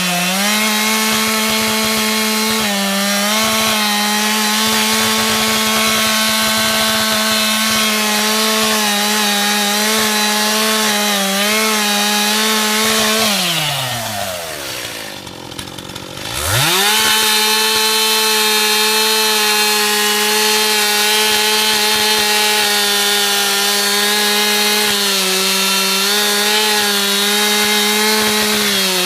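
Stihl MS291 two-stroke chainsaw running at high revs. About halfway through, the engine note drops away over a few seconds almost to nothing, then quickly revs back up and holds steady again.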